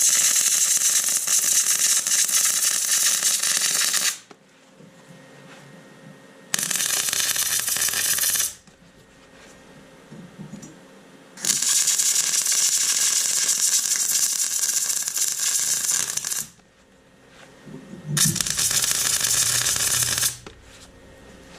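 MIG welder arc crackling and sizzling as steel horseshoes are welded together, in four runs: a long one at the start, a short one, a longer one in the middle and a short one near the end.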